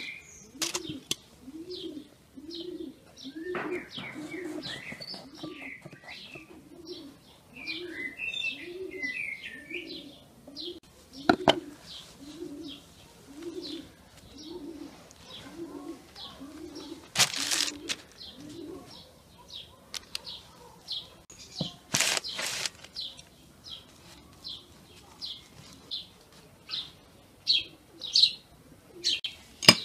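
Birdsong: a dove cooing in a steady, even series of low calls that stops about two-thirds of the way through, over many short high chirps from small birds. A few brief scraping or crunching noises stand out above it.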